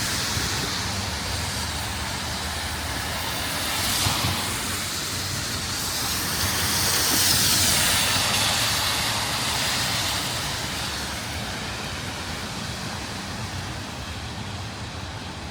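Road traffic passing on a rain-wet street, tyres hissing on the wet pavement, over steady rain. The hiss swells as vehicles go by about four seconds in and again around seven seconds, then eases off near the end.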